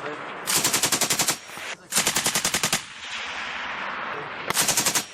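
Light machine gun firing three short bursts of automatic fire, each a rapid even string of shots at about a dozen rounds a second. The last burst is the shortest.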